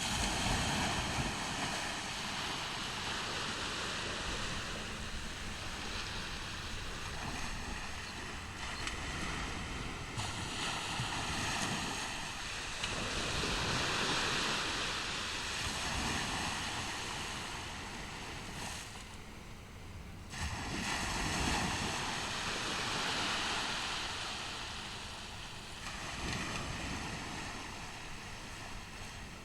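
Ocean surf washing onto a beach, a steady rush that swells and ebbs as the waves come in, with low wind rumble on the microphone.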